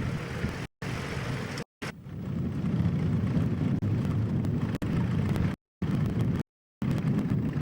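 Tractor engine noise, a low, noisy rumble, in a ploughing field. It is louder in the middle and drops to dead silence several times: dropouts in the old recording's sound track.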